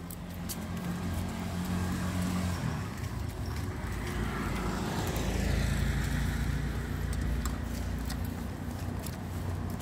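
A motor vehicle going by: a low steady engine hum with road noise that grows to a peak about halfway through and then eases off.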